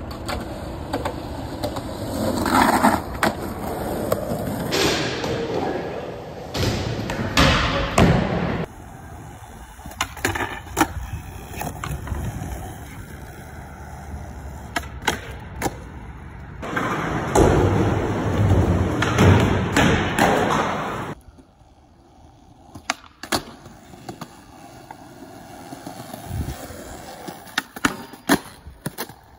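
Skateboard wheels rolling on concrete, with sharp clacks of the board popping and landing, in several short takes whose background changes abruptly. Near the end the board slides along a low metal rail.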